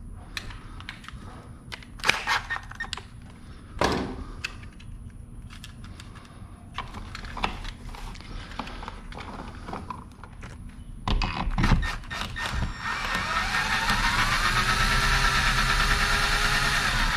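Cordless drill-driver spinning up and running steadily for about four seconds near the end, driving a screw to fasten a garage door sensor bracket to a wall plate. Before it, scattered clicks and knocks from handling the plastic sensor and wiring.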